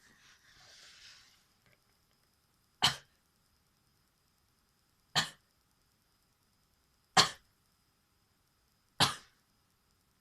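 A person sneezing four times, about two seconds apart, each sneeze short and sharp.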